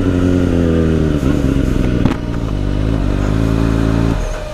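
Kawasaki Ninja ZX-6R's inline-four engine running at low speed as the bike rolls slowly, its note shifting in pitch in small steps. About four seconds in the engine sound drops away sharply.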